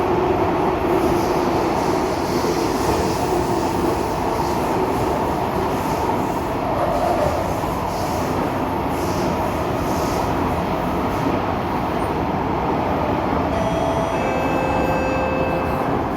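Kawasaki Nippon Sharyo C751B metro train running in the tunnel, heard from inside the carriage: a steady dense rumble and hiss of wheels on rail. Several thin high tones come in near the end as the train nears the station.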